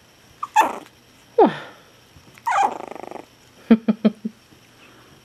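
Six-week-old chihuahua puppy giving small high yips, each sliding down in pitch, then a longer, rougher call about two and a half seconds in and a quick run of four short yaps near the end.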